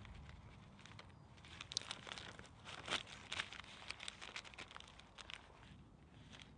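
Rustling and crackling: a quick, uneven run of small crinkles and clicks that thickens about a second and a half in and thins out again near the end.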